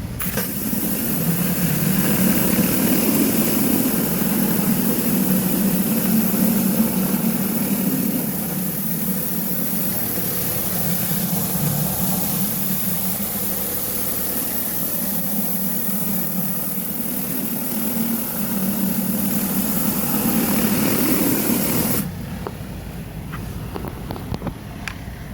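Pressure washer jet spraying concrete to strip built-up kitchen grease: a loud steady hiss of water over the running engine and pump. The spray cuts off suddenly near the end, leaving the engine running quieter.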